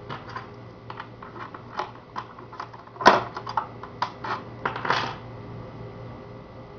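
Small metal lock parts clicking and clinking as they are handled, a quick irregular run of sharp clicks with the loudest about halfway through.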